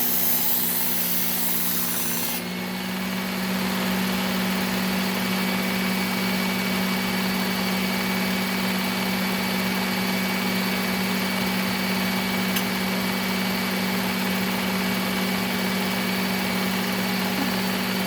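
Electric belt sharpener running with a steady hum; for the first couple of seconds a knife blade is held against the moving belt, giving a bright hiss that cuts off suddenly, leaving the motor running on its own.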